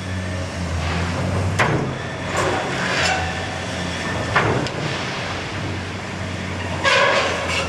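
Caterpillar 390D demolition excavator's diesel engine running with a steady low drone as its bucket breaks into a building wall. Crashes and scrapes of falling concrete and masonry come every second or so, with the loudest cluster near the end.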